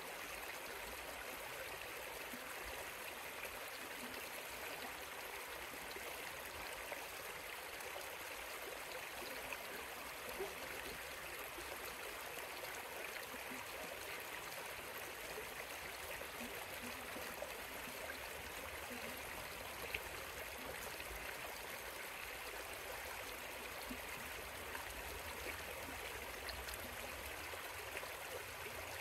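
River water flowing in a steady, even rush, with a few faint ticks here and there.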